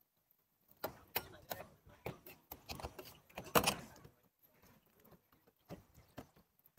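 Scattered short clicks and knocks of cooking work: a metal spatula handling pancakes in a wok, then hands pressing dough on a steel counter. The loudest clatter comes about three and a half seconds in, with fainter taps near the end.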